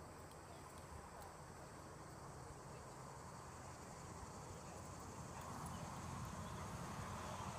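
Faint outdoor ambience with a steady, high-pitched insect drone.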